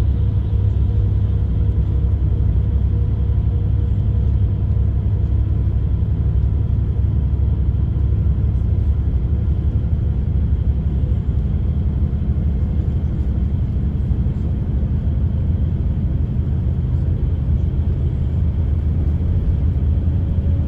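Bus engine and road noise heard from inside the passenger cabin: a steady, deep rumble with a faint whine above it.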